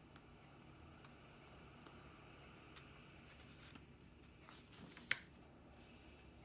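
Near silence: quiet room tone with a few faint ticks and one sharp click about five seconds in.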